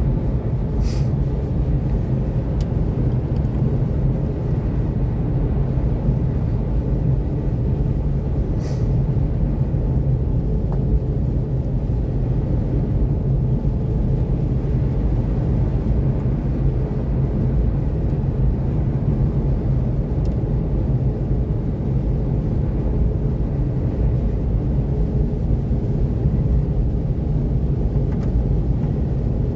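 Steady road noise from a Seat Mii electric cruising at about 90 km/h on a snow-covered highway: its Nokian R5 winter tyres running through the snow, with no engine sound. Two faint clicks come about a second in and near nine seconds.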